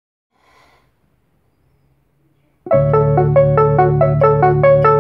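Portable electronic keyboard starting to play about two and a half seconds in, after near silence: a held low bass note under a quick, repeating run of melody notes.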